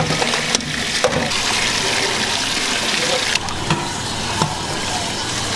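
Tap water pouring into a stainless-steel sink full of water, with a hand sloshing sliced vegetables and carrot strips around as they are rinsed.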